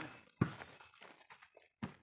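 Two sharp slaps of hands striking a volleyball during a rally, about a second and a half apart, the first the louder.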